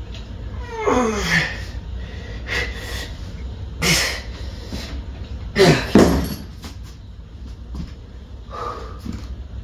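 A man breathing hard and letting out strained groans that fall in pitch, once about a second in and twice near the middle, with a few short knocks from a cable pulley and weight plates during single-arm cable lat pulldowns.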